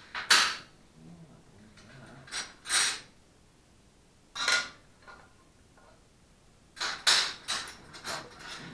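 Short sharp clattering noises from hands and tools working on a small engine's metal parts on a workbench, about eight of them, coming singly and then in a quick run near the end.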